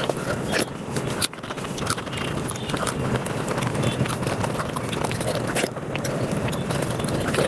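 Close-up eating sounds sped up to five times normal speed: a rapid, unbroken run of chewing, smacking and wet squelching clicks.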